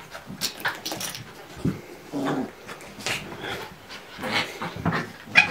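A puppy and raccoons play-fighting, heard as a run of short, irregular growls and yelps with scuffling. The loudest burst comes near the end.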